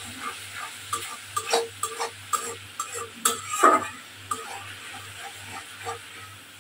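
Metal spatula stirring and scraping thick masala gravy around a metal wok, with irregular clinks and scrapes against the pan over the sizzle of frying oil. The scrapes are loudest about halfway through.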